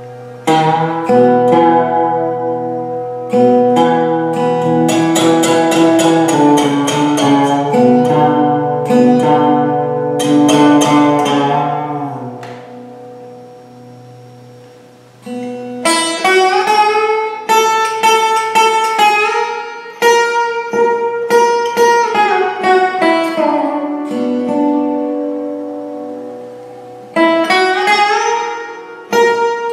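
A walnut Ragmakamtar 14B, a hand-built plucked string instrument, played solo. Plucked melodic notes ring over a low drone, and the sound fades to a lingering ring for a few seconds about halfway through. Then come phrases whose notes slide up and down in pitch, with hard plucking again near the end.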